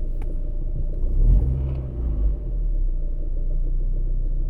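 Lada Priora 16-valve engine running at idle, a steady low rumble that swells briefly about a second in. The owner hears a knock from the lower right side, which he guesses could be the alternator belt roller, though he is not sure.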